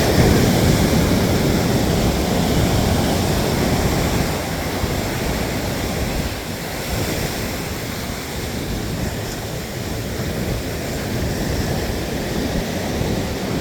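Ocean surf: waves breaking and washing up the beach, louder for the first few seconds and then easing.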